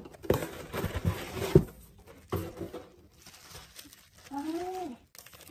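Cardboard shipping box and bubble wrap rustling and knocking as a bubble-wrapped package is pulled out of the box, with a few knocks in the first second and a half. A brief rising-and-falling tone comes near the end.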